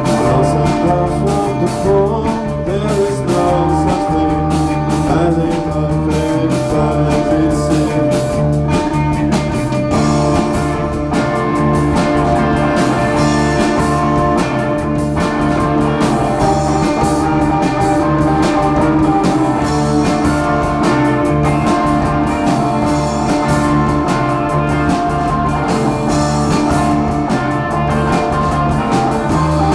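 Rock band playing live, electric guitar over a steady drum beat.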